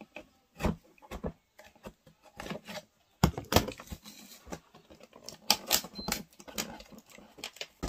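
Cardboard box being cut and picked open by hand: irregular sharp clicks, taps and scrapes, with clusters of louder ones about three and a half seconds in and again around six seconds.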